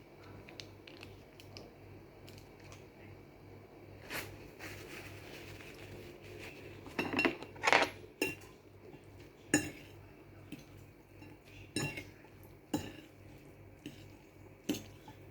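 Eating utensils clinking and scraping against dishware, in scattered single knocks about a second or two apart, with a soft scraping stretch about five seconds in.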